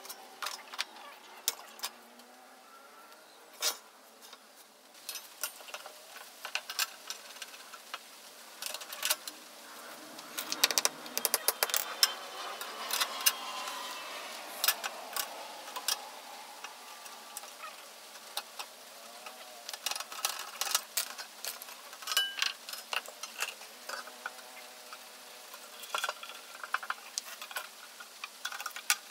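Scattered metallic clicks, taps and knocks as steel bar clamps are slid on and tightened and sheet-metal panels are handled. The knocks come thicker about ten to fifteen seconds in, with some scraping.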